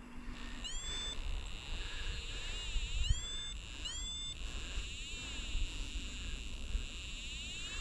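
Steady high-pitched chorus of insects with a pulsing, wavering texture. Three short calls, each rising in pitch, come about a second in and twice more around three and four seconds in. A low rumble of wind runs underneath.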